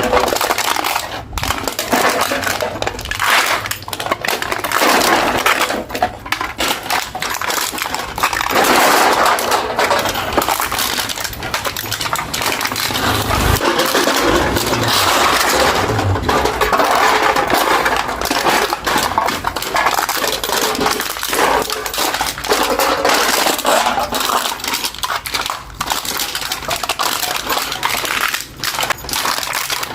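Aluminium beer can being crushed and crumpled by hand, with continuous crinkling and sharp metallic crackles and clicks.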